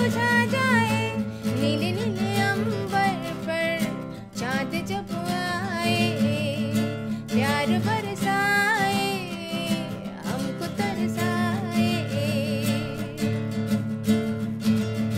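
A woman singing a Hindi song over a strummed acoustic guitar, her held notes wavering with vibrato.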